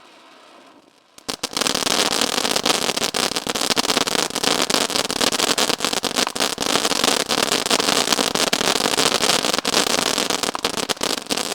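Ground firework fountain spraying a dense crackle effect. It starts suddenly about a second in, runs thick and loud, and begins to break up near the end.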